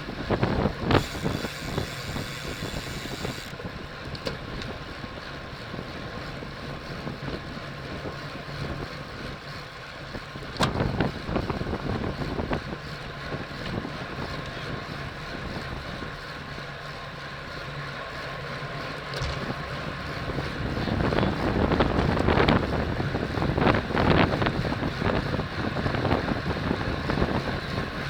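Wind rushing over the microphone of a camera riding along in a bicycle race, with steady road noise beneath; it gusts louder about three-quarters of the way through.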